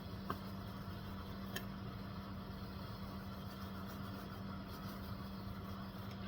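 A steady low hum, like a motor or appliance running, with two faint light clicks in the first couple of seconds.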